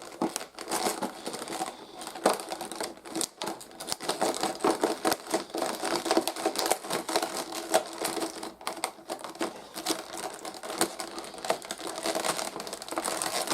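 Plastic and cardboard toy packaging being handled and opened, a dense run of irregular clicks, crackles and rustles.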